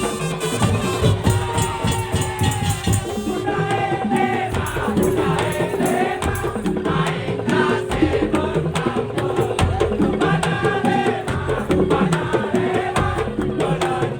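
Madurese tong-tong ensemble playing: a dense, fast rhythm of struck wooden and bamboo slit drums and other percussion, with a sliding melodic line over it.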